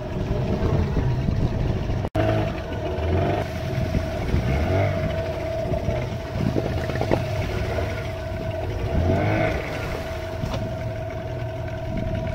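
A fishing boat's motor running steadily at sea, with a constant mid-pitched drone over a low rumble, and water and wind noise around it.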